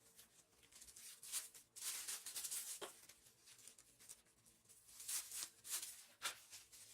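Plastic wrap or bags rustling and crinkling in short, irregular bursts while raw meat is portioned and wrapped, with a brief falling squeak about three seconds in.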